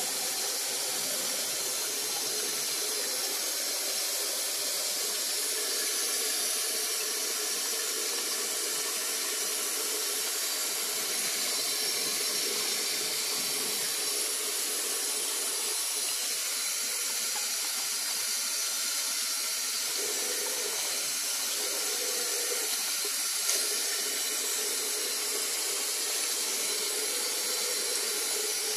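Tap water running steadily into a shallow white basin and flowing down the drain, an even rushing noise that does not change.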